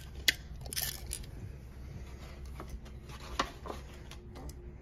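A small brown paper gift bag rustling and crinkling as it is handled, with a few sharp clicks and taps. The loudest click comes just after the start, and a short rustle follows about a second in.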